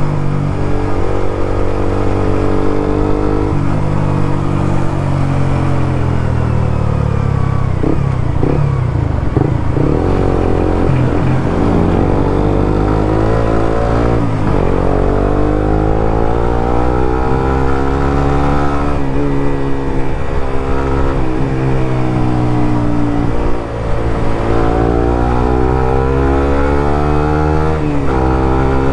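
Suzuki GSX-R150's single-cylinder engine running through a Prospeed Black CNC full-system aftermarket exhaust while ridden on the road, its pitch climbing and falling several times.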